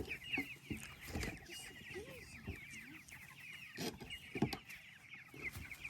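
Flock of four-week-old meat chickens peeping and clucking softly: many short, high chirps overlapping one another, with a couple of soft knocks about four seconds in.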